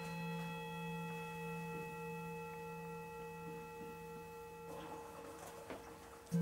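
A singing bowl struck and left ringing: a low hum with several higher overtones, the upper ones slowly fading. It is struck again, louder, near the end.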